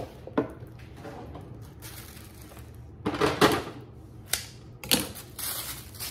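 Handling noise as a pair of shoes is picked up and handled: a few sharp clacks and knocks, with stretches of rustling about three seconds in and near the end.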